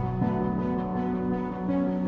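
Background music: soft sustained notes that change pitch a little after the start and again near the end.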